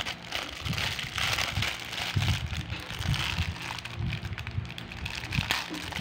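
Plastic packaging of a fidget toy crinkling and rustling irregularly as it is handled and opened, with soft handling bumps.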